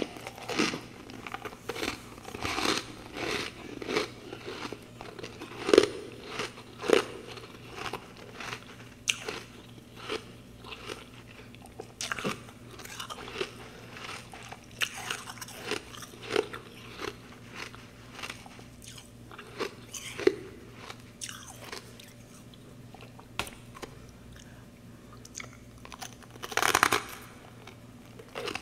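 Close-mic biting and chewing of packed freezer-frost clumps, sharp irregular crunches one after another, with a loud burst of crunching near the end. A faint low steady hum runs underneath.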